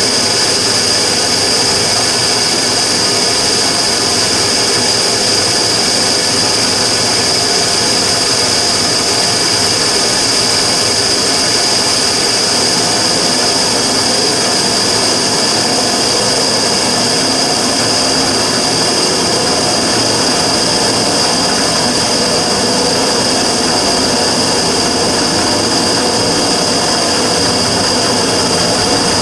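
Immersion-tube burner running with a steady rushing noise and a steady high-pitched whistle on top, the abnormal noise for which it is being recorded.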